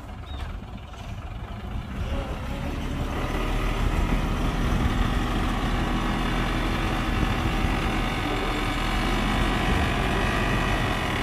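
Heavy diesel engine of an earthmoving machine, quieter at first, growing louder about two to four seconds in, then running steadily.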